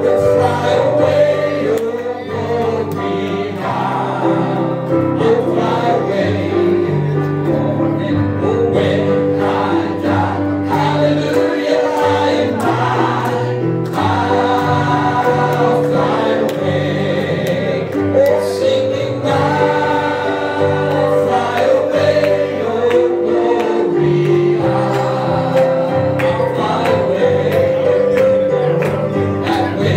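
Gospel worship song sung by a choir and congregation, with steady instrumental accompaniment underneath.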